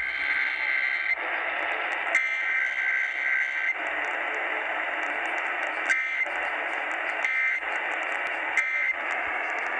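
Radio receiver static: a dense, narrow hiss with a high whistle that cuts in and out several times, typical of AM reception of KDKA.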